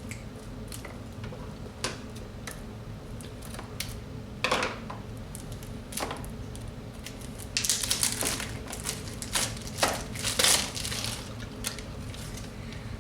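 Small clicks and taps of plastic toy packaging being handled, then a few seconds of crinkling and crackling as a Twosies blind bag is torn open, starting about two-thirds of the way in.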